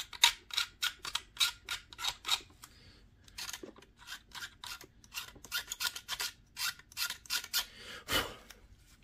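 A metal hand file rasping at the plastic wing-mounting posts of a model aircraft fuselage to clean them up. It makes quick scraping strokes, about three a second, with a short pause about three seconds in and one louder stroke near the end.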